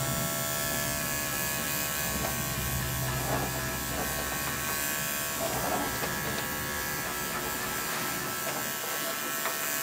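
Andis five-speed electric dog clipper running with a steady, even hum.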